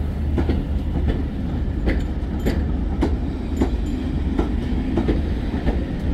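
Passenger coaches of a train rolling past at low speed, their wheels clicking over rail joints about twice a second over a steady low rumble.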